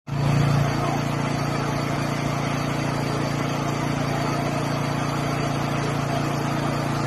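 An engine running steadily, with a constant hum.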